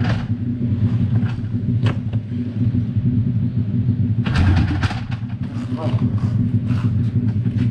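Small motorcycle engine idling steadily, with voices talking over it.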